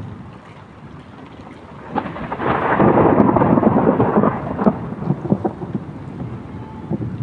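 Thunder over steady rain: rain hiss, then about two seconds in a thunderclap breaks out into a loud crackling rumble that peaks for a couple of seconds and dies away, with a few sharp cracks near the end.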